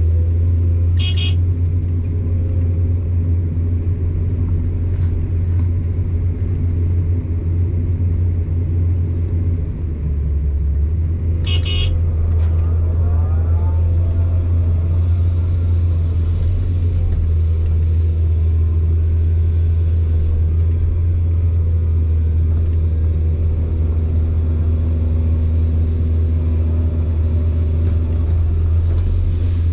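Excavator's diesel engine running steadily at idle, a loud, constant low hum. Two short high-pitched sounds break in, about a second in and again about twelve seconds in.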